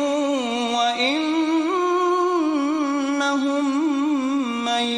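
A man's solo Quran recitation in the melodic tajweed style. He holds one long, wavering, ornamented note on the end of "innaka mayyitun" and goes on into "wa innahum" near the end.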